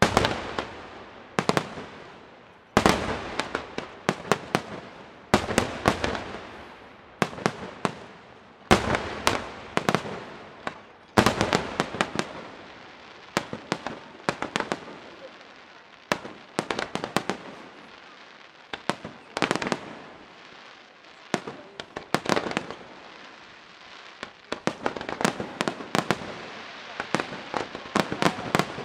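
Aerial fireworks display: shells bursting one after another, sharp bangs every second or two with crackling in between, thickening into a denser barrage near the end.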